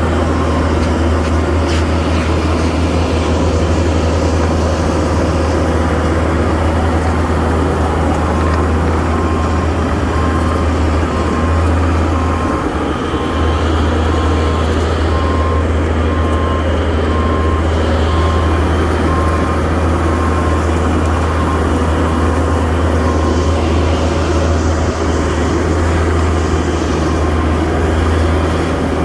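Skid steer engine running steadily with a deep rumble, and a backup alarm beeping about once a second through the middle stretch.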